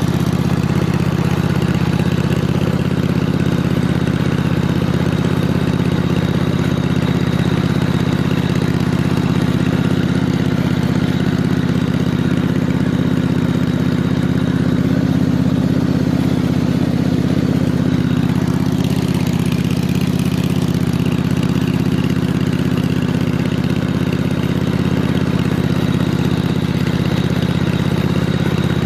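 An engine running steadily at an even, low pitch, with no revving.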